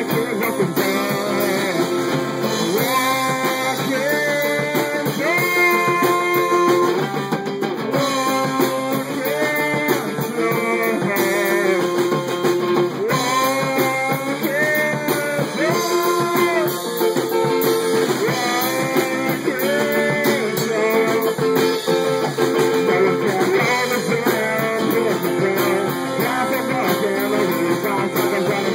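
Live rock band playing: a teenage boy sings into a microphone while strumming a guitar, backed by a drum kit.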